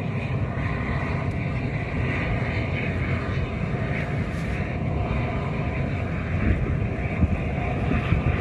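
Tugboat's diesel engines running with a steady low rumble as it pushes a barge past.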